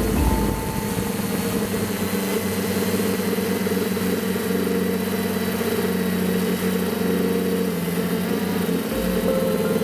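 Cheerson CX-20 quadcopter's brushless motors and propellers humming steadily in flight, heard from the drone's onboard camera. The pitch shifts slightly near the end.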